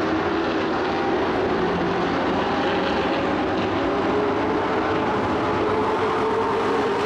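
Several dirt-track racing truck engines running hard in a pack, a steady loud drone of overlapping engine notes that drift slightly in pitch as the trucks circle.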